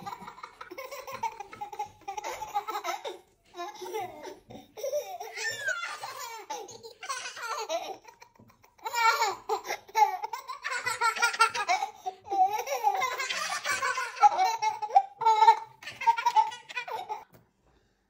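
Toddlers laughing in repeated peals with short pauses, stopping shortly before the end.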